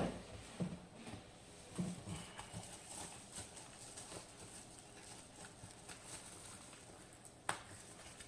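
Scattered faint clicks and knocks of the disassembled VALENTE Securystar Pro Star lock's small metal parts being handled, with a few soft knocks in the first two seconds and one sharper click near the end.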